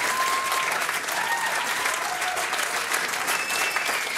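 Concert audience applauding, dense fast clapping with long high-pitched calls from the crowd rising above it several times.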